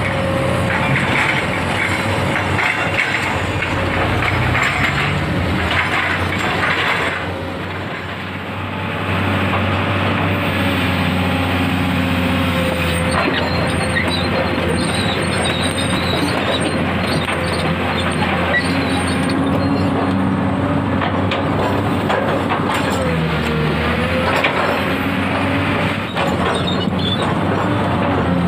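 Komatsu hydraulic excavator's diesel engine running steadily under load, with clanking from the machine's tracks and the rocks it handles.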